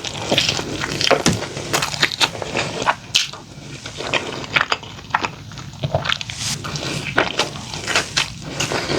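Close-miked chewing of a fast-food burger meal: irregular crisp crunches and wet mouth clicks, with no steady rhythm.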